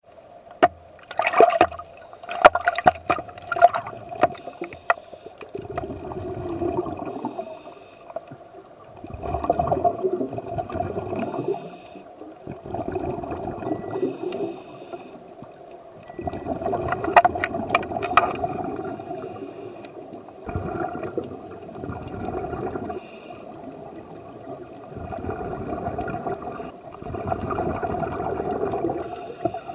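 Underwater gurgling and bubbling that swells up and dies away every three to four seconds, with sharp clicks in the first few seconds and again about halfway through.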